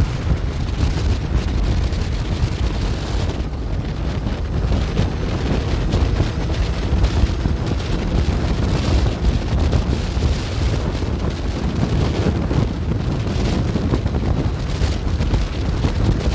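Wind buffeting the microphone: a steady, fluctuating rumble.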